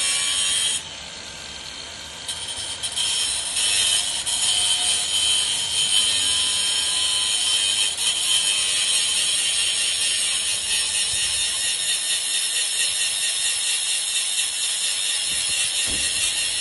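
Power tool cutting into a chain bike lock, a steady high-pitched grinding of metal. It eases off briefly about a second in, then builds back up over the next couple of seconds and runs on steadily.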